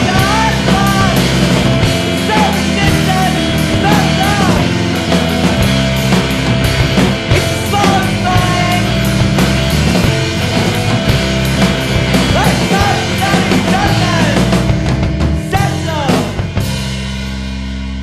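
Punk rock song played by a full band with drums and singing; about 16 seconds in the playing stops on a final chord that rings on and slowly fades.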